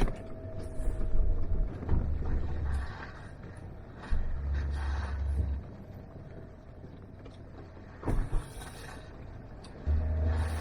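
A vehicle driving slowly along a rough dirt forest trail, running steadily with irregular low rumbles and a few sharp knocks and rattles from the bumps, louder in the first half and again near the end.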